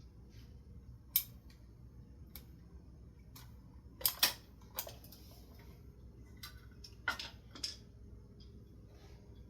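Scattered light clicks and taps of a ceiling fan light kit's small metal parts and screws being handled while it is taken apart, irregularly spaced, the loudest a quick double click about four seconds in.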